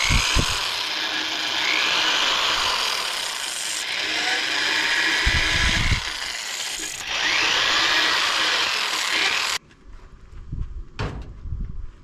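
Corded electric drill running a half-inch diamond hole saw bit through the wall of a terracotta clay pot: a loud, steady grinding with recurring sliding whistles. It stops suddenly near the end, leaving a few small knocks.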